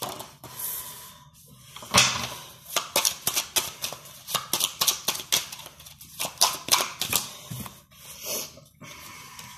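Tarot cards being shuffled and handled: a run of quick papery clicks and short swishes as cards are flicked, slid and laid on a tabletop.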